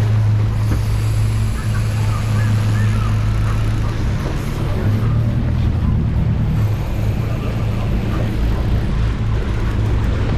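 Sport-fishing boat's engine running at a steady pitch, with wake water and wind rushing past.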